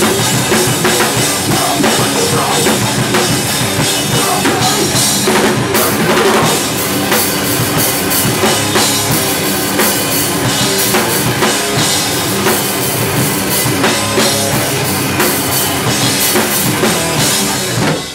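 Hardcore punk band playing live, loud and dense, with the drum kit (bass drum, snare, cymbals) driving under the guitars. The song stops abruptly at the very end.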